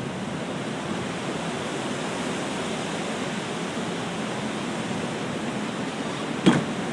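Steady rushing roar of storm wind as a tornado passes close by, with a single knock about six and a half seconds in.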